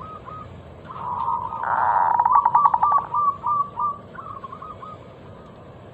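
Zebra dove (perkutut) cooing. At the start the tail of one song phrase trails off, and about a second in a full phrase begins: a fast rattling run that breaks into a string of short, clipped coos.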